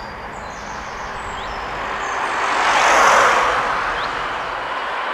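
Rushing engine noise with a low rumble underneath, swelling to a peak about three seconds in and then easing off. A few short, high chirps sound over it.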